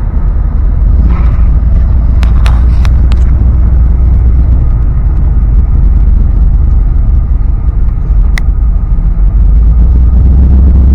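Old Dodge pickup truck driving, a loud steady low rumble of engine and road noise, with a few sharp clicks about two to three seconds in and another near the end.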